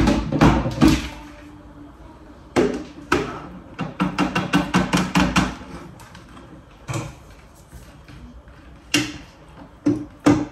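A spatula knocks and scrapes against a Bimby's plastic Varoma steaming tray as steamed clams are tipped off it into the machine's mixing bowl. There is a loud knock at the start, a quick run of taps (about four a second) a few seconds in, then single knocks near the end.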